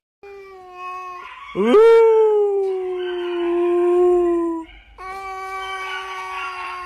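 An animal howling in long drawn-out calls: a short call, then a louder one that swoops up and holds for about three seconds while slowly sagging in pitch, then another steady held call starting about five seconds in.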